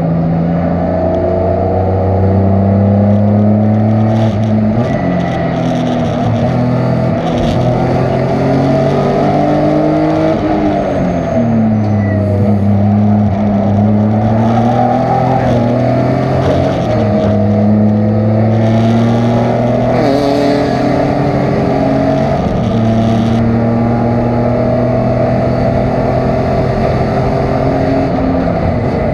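Race car engine pulling hard, its pitch climbing through each gear and dropping back at the shifts. About ten seconds in the pitch falls away as the car slows for a corner, then climbs again as it accelerates out.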